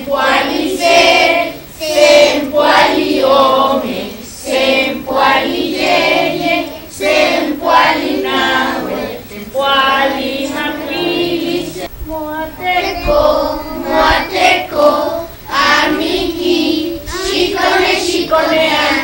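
A group of children singing a song together, voices only, along one melody line with held notes.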